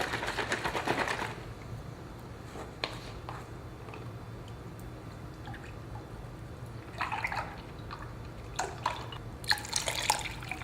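A can of coconut milk shaken hard, its contents sloshing in quick rapid strokes for about the first second. Then coconut milk is poured into a crockpot, with dripping and a few splashy spurts later on.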